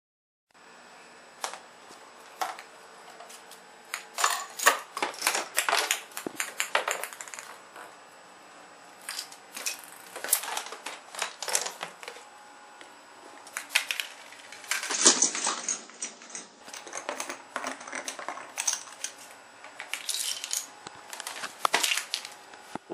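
Homemade chain-reaction machine running: bursts of rapid clicking and clattering as dominoes topple and a ball and small objects knock into one another, with pauses between the runs. The loudest clatter comes about fifteen seconds in.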